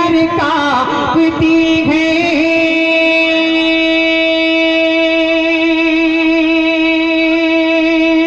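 A naat sung by a man into a microphone through a loudspeaker system. The melody moves for the first couple of seconds, then settles into one long, steady held note.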